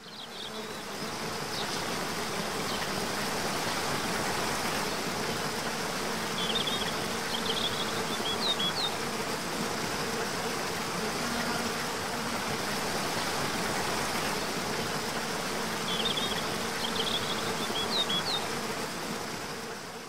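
Steady buzzing hum of insects over an even hiss, with a few short, high bird chirps in small clusters about a third of the way in and again near the end. It fades in at the start and out at the end.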